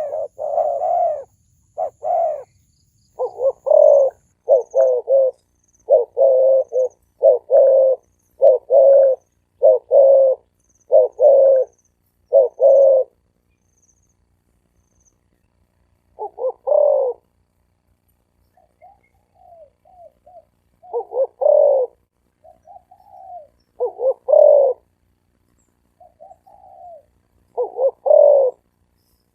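Spotted dove cooing with a deep, ringing voice. A steady run of coo phrases comes at about one a second, stops for a few seconds, then resumes more irregularly, with louder coos spaced apart and softer, shorter crooning notes between them.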